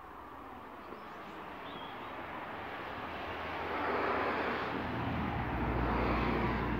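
Engine noise of something passing by: a rushing sound that swells over several seconds, is loudest in the second half with a low hum underneath, and begins to fade near the end.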